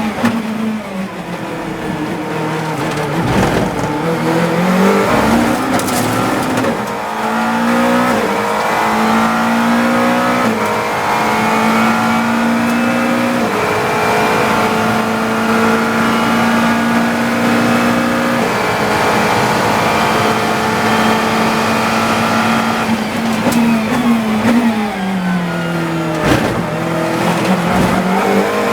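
GT3 race car engine heard from inside the cockpit. It drops through the gears under braking near the start, then accelerates through a run of upshifts and holds high revs for a long stretch. Near the end it downshifts for another braking zone and pulls away again.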